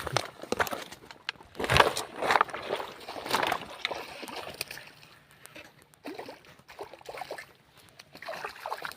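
Water splashing and sloshing in irregular bursts, the loudest about two seconds in, as a hooked snakehead fish thrashes at the surface.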